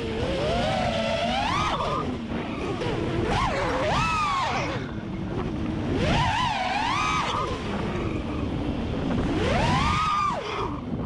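Brushless motors and propellers of a 4-inch FPV freestyle quadcopter (T-Motor 1507 motors, Gemfan 4-inch props) whining, the pitch climbing and dropping several times as the throttle is punched and cut, over a steady rush of air on the onboard camera's microphone.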